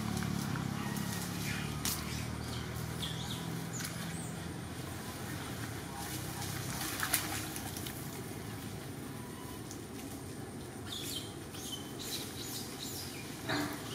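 Outdoor ambience: a passing motor vehicle's engine hum fades away over the first few seconds, leaving scattered short, high chirps and a few light clicks.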